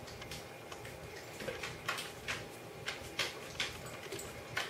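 Great Dane licking and smacking her lips over and over, a run of wet clicks about two to three a second. It is compulsive licking that she cannot stop.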